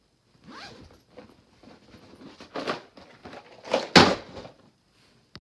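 A string of short rustling and scraping sounds, with a loud, sharp scrape about four seconds in and a brief click near the end.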